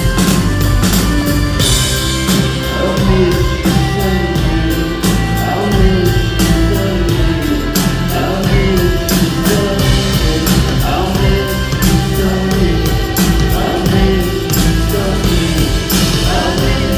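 Indie folk-rock band playing live, with sung vocals over steady bass and a regular drum beat.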